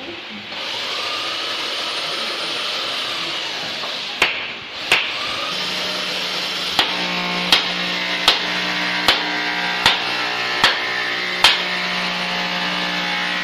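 Hammer blows on wood during door assembly: two knocks, then seven evenly spaced knocks about three-quarters of a second apart. A steady hiss and, later, a steady hum run underneath.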